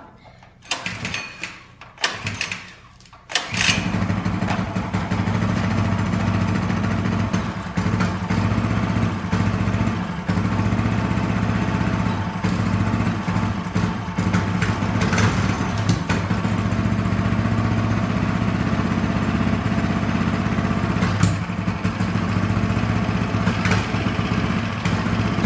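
Coleman 100cc mini bike's single-cylinder four-stroke engine being pull-started: a few short cranking pulls, then it catches about three and a half seconds in and runs steadily.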